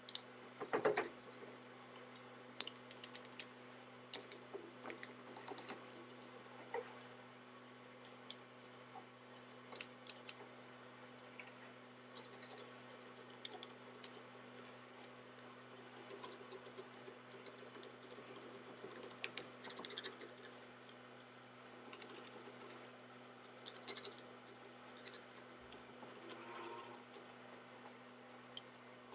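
Irregular light clicks, taps and small metallic scrapes and jingles from hand work with tools and metal parts, over a low steady hum.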